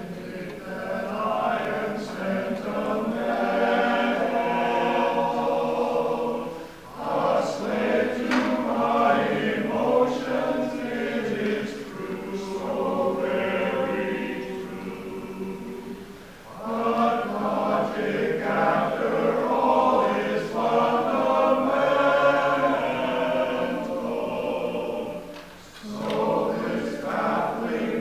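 Men's chorus singing, its sustained phrases broken by short pauses about every nine seconds.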